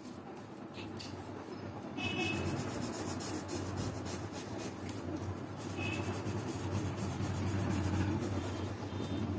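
Felt-tip marker rubbing on paper in quick back-and-forth strokes, starting about two seconds in, over a low steady hum.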